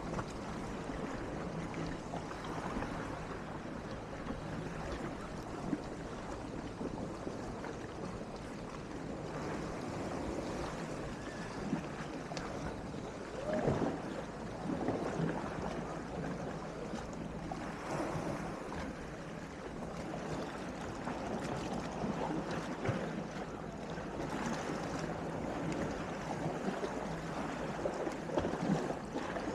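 Calm sea washing and lapping in small waves, with wind rumbling on the microphone; the wash swells a little louder a few times.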